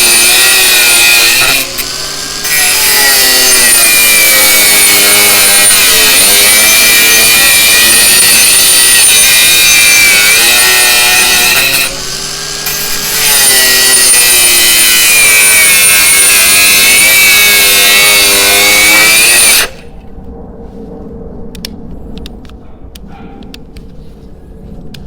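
Cordless brushless angle grinder (Parkside PWSAP 20-Li C3) running loud under load, its motor pitch wavering as the disc bites into the work, easing off briefly twice. It cuts off sharply about twenty seconds in, leaving faint clicks and rattles.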